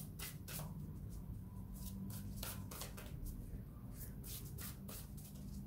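A tarot deck shuffled by hand: a run of soft, irregular flicks and slides as the cards rub past one another.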